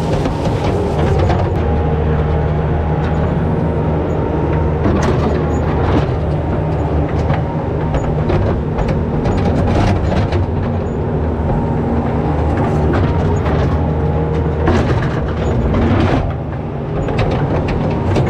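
Skid steer engine running steadily under load, with frequent knocks and clatter as its bucket scrapes and levels a driveway of spread rock.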